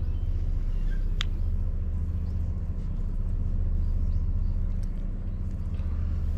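Steady low drone of an idling engine, with a single sharp click about a second in and a few faint chirps.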